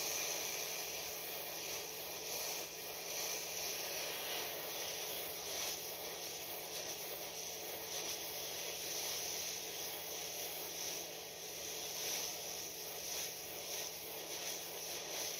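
Hot air rework station blowing a steady hiss of air from its nozzle, with airflow set to about 75 and the heater at 350 °C, heating the solder under a phone board's LCD connector until it melts.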